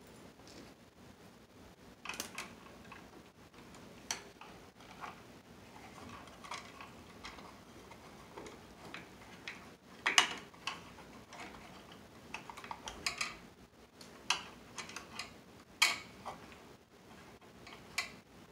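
Pliers and copper wires being worked at an electrical box: irregular metallic clicks, taps and short scrapes, the sharpest about ten seconds in and again near sixteen seconds.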